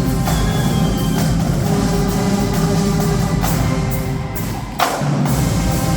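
High school marching band playing, held chords over drums. About four and a half seconds in the sound thins briefly, then a sharp percussion hit lands and the full band comes back in.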